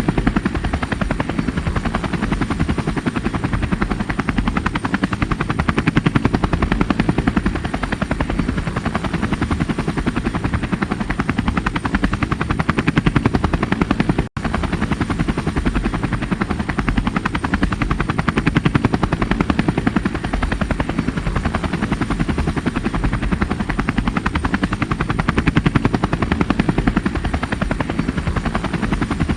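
Helicopter in flight, its rotor blades chopping in a rapid, steady beat. There is a split-second cut in the sound about halfway through.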